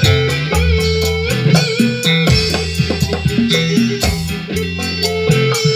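Recorded music with guitar and a drum beat, played from a phone through an Ashley V4800 four-channel power amplifier and its speakers.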